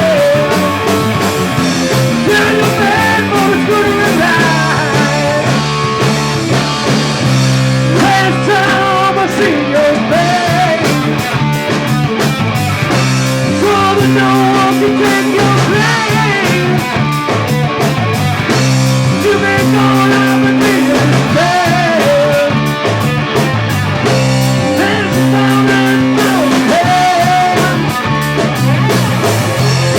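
Rock music: a band with electric guitar, bass and drums playing a steady beat, with singing at times.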